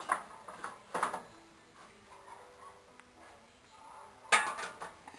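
Metal steamer pot and lid clanking as they are handled: sharp knocks with a short ring, about a second apart at first and the loudest near the end.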